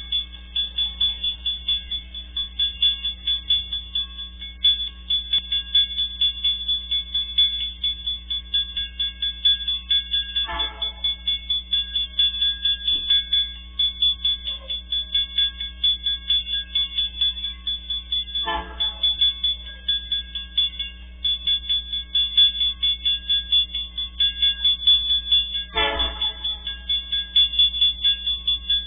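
Level-crossing warning bell ringing steadily at about two strikes a second, with three short blasts of an approaching MRS Logística freight locomotive's horn, roughly seven to eight seconds apart.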